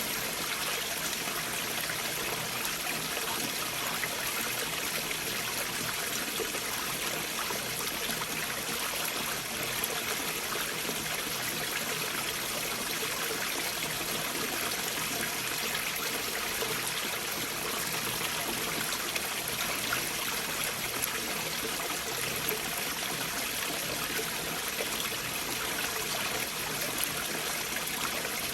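A stream flowing among and beneath large boulders: a steady, even flow of water that holds without change throughout.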